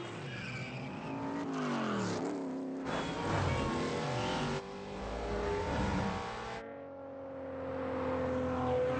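Film chase sound mix of a classic Plymouth V8 muscle car and a Maserati sports sedan revving hard and sweeping past, the engine pitch rising and falling again and again. The sound changes abruptly about three, four and a half and six and a half seconds in, where the shot changes.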